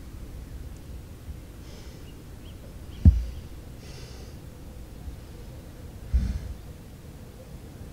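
Soft breathing close to the microphone, a breath about every two seconds, with two low thumps about three seconds apart from the handheld camera being handled.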